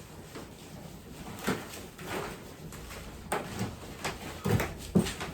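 Garden soil in a raised bed being mixed and scraped, with a handful of short, irregular scrapes and rustles as fertilizer is worked into the top layer.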